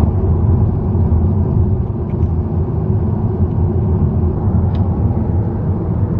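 Steady rumble of a moving car heard from inside the cabin: road and engine noise while driving.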